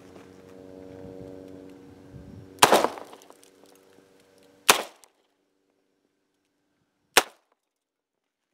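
Three shots from a Ruger LCR .22 LR revolver firing No. 12 shotshells (snake shot), spaced about two to two and a half seconds apart.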